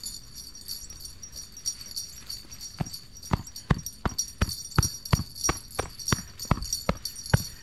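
Footsteps in wet snow: a quick, even series of steps, close to three a second, starting about three seconds in.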